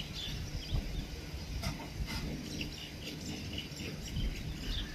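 Scattered short bird chirps over a low, steady rumble.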